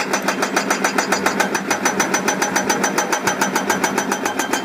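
Rock-breaker excavator machine sound: a rapid, even knocking about ten beats a second over a steady engine hum.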